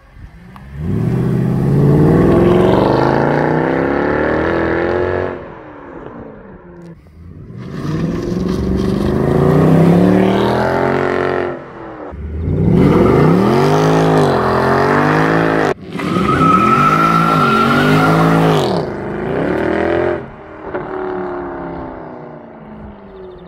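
Mercedes-Benz C63 AMG (W204) with its 6.2-litre M156 V8, accelerating hard in several full-throttle pulls, the exhaust note climbing steadily through the revs. In the last pulls the revs rise and fall several times in quick succession.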